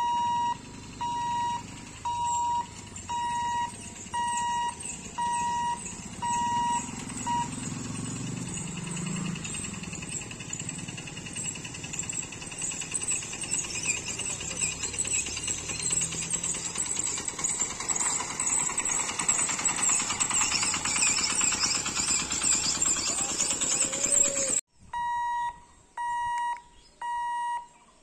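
Level-crossing warning beeper sounding a steady high beep about once a second, which stops about seven seconds in. Then road vehicles, a motorcycle and a van among them, drive across the crossing with engine noise and a rising hiss. Near the end the same regular beeping starts again.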